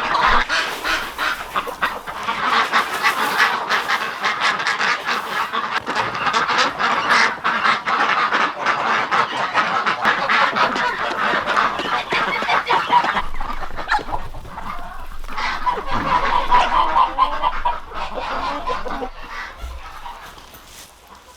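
A flock of domestic geese and ducks honking and quacking together in a continuous, overlapping clamour that dies away over the last few seconds.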